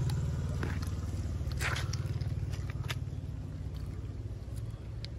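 A steady low rumble runs throughout, with a few light clicks and rustles from a small plastic drink bottle being handled.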